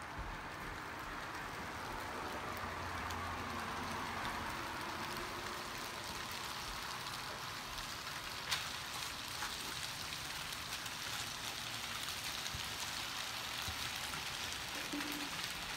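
Rice noodles with beef, bean sprouts and chives sizzling steadily in a wok over a portable gas burner, with one sharp tick about eight and a half seconds in.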